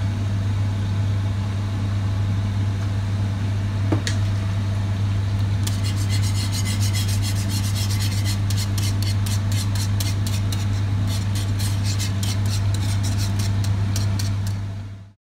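Wire whisk stirring bubbling sauce in a pan, scraping in rapid strokes several times a second from about six seconds in, over a steady low hum.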